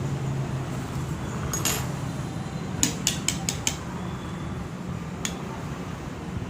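Light metallic clicks and clinks of small metal objects being handled: a brief clatter, then a quick run of five sharp clicks, and a single click near the end, over a steady low background hum.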